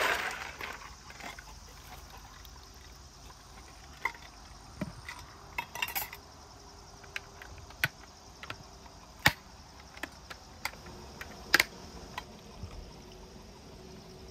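Scattered clinks and knocks, like camp dishes and utensils being handled, with the sharpest about nine seconds in and a close pair at about eleven and a half seconds, over a faint steady hum of insects.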